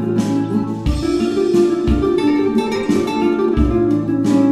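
Background music led by a plucked acoustic guitar, with a low beat recurring about once a second.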